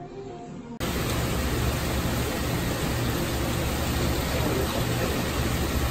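Steady, loud hiss with a low hum underneath from a seafood market stall's machinery: water running and circulating through live-fish tanks, with refrigeration and ventilation units running. It starts suddenly under a second in.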